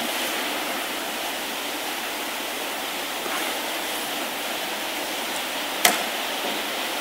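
Steady hiss of room noise with no voices, and a single sharp click about six seconds in.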